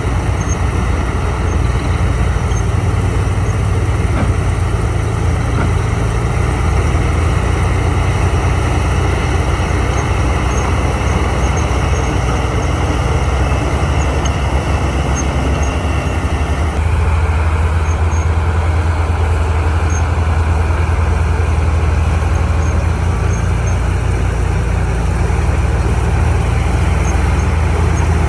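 Heavy diesel engine of earthmoving machinery running steadily, with a change in the engine note a little past halfway.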